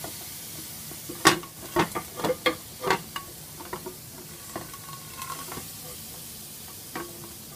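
An ice cube melting in a hot nonstick frying pan, the water sizzling with a steady hiss and sharp pops and crackles, most of them in the first three seconds. The fast melt shows the pan is hot enough to cook.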